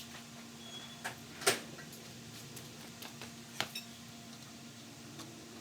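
A few light clicks and taps of small metal parts being handled while a flywheel key is fitted on a small mower engine's crankshaft, over a faint steady hum; the sharpest tap comes about a second and a half in.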